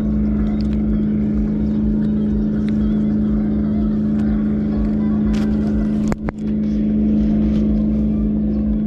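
A motor engine running steadily at a constant speed, a level hum, broken by a brief dropout about six seconds in.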